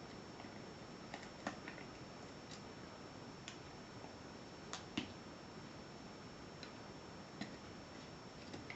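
Scattered small sharp clicks and taps, about ten of them at irregular intervals, from handling a five-lever mortice lock as its case is opened up to expose the levers.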